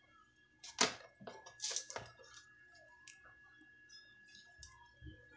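Hands handling a washing machine's spin-dryer motor and its lead wires: a sharp click about a second in, then a short run of scrapes and clicks, then only faint handling noise.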